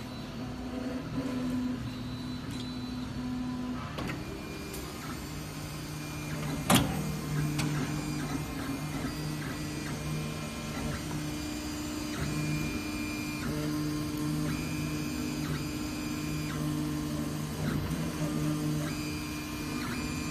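MINGDA large metal-frame FDM 3D printer printing. Its stepper motors whine as the print head and bed move, the pitch stepping up and down every second or so with each move. A single sharp click comes about seven seconds in.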